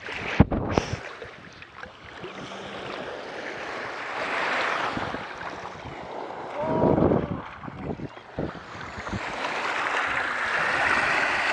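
Small waves lapping and washing in shallow water, swelling a couple of times, with wind on the microphone. A sharp knock about half a second in and a short louder sound about seven seconds in.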